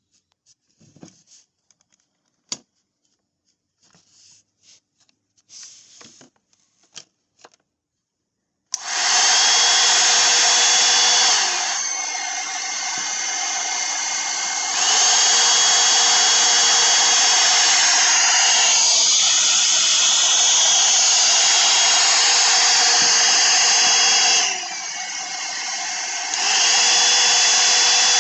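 VASLON 4-in-1 hot air brush running: after a few faint clicks, its motor and fan start abruptly about nine seconds in, with a loud steady rushing hiss and a whine. Twice it drops to a quieter, lower-pitched speed for a few seconds, then comes back up, and it switches off at the end.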